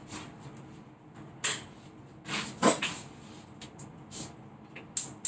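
Kitchen handling noises: several separate knocks and clunks, with a few lighter clicks in between.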